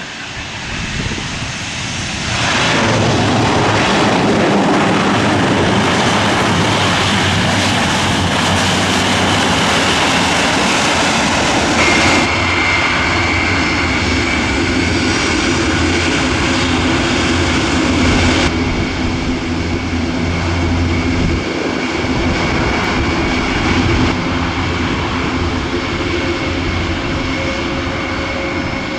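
Military turboprop transport aircraft with engines running at high power, loud from about two and a half seconds in, with a low drone and a steady whine added about twelve seconds in.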